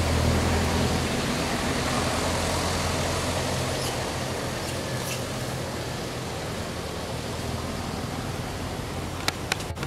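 Steady outdoor background noise with a low hum that eases off after the first couple of seconds, and a few sharp clicks near the end.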